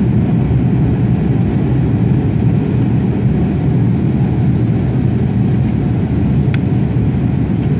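Steady low cabin noise of an Airbus A330-300 in flight on approach: engine and airflow noise heard from inside the cabin. A faint click comes about six and a half seconds in.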